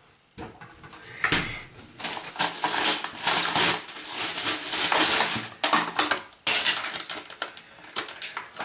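Crisp bread crunching and crackling under a knife or teeth in dense bursts, after a few light clicks at the start.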